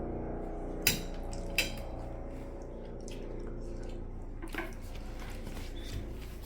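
Cutlery and dishes clinking: two sharp clinks about a second in and a second and a half in, then two fainter knocks later, over a low steady hum.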